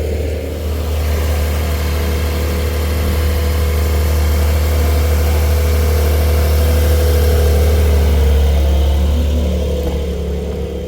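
A car engine running steadily, slowly growing louder to a peak and then easing off near the end.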